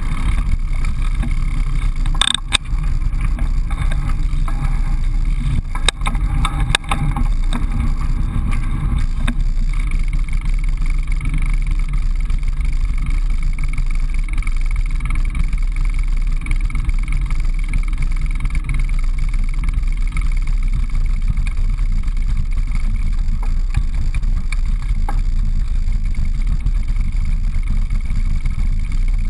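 Steady wind rumble and tyre noise of a road bike riding, heard through a bike-mounted action camera, with a few sharp knocks in the first seven seconds.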